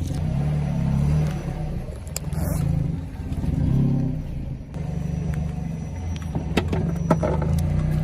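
Car engine running at low speed, its low rumble swelling and easing, with a few sharp cracks near the end.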